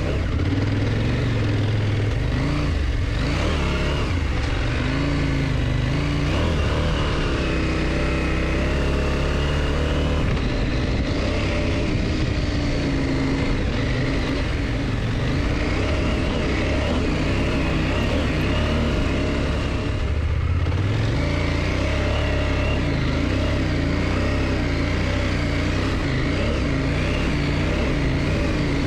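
KTM motorcycle engine running under way, its note rising and falling with the throttle, with a brief dip and a rise again about twenty seconds in.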